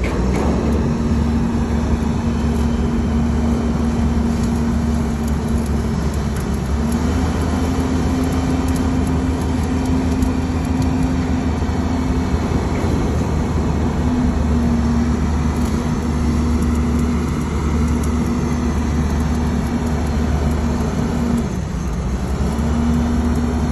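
A motor or engine running steadily, a low drone with a humming tone that shifts slightly in pitch and briefly breaks off three times.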